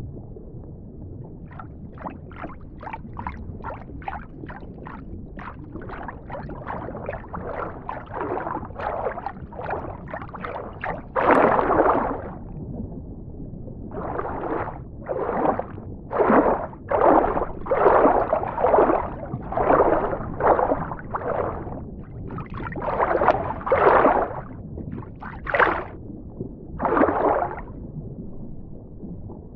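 Underwater ambience: a steady low rumble with a run of short bubbling bursts, about two a second at first, then bigger, louder bubbles at uneven spacing from about eleven seconds in.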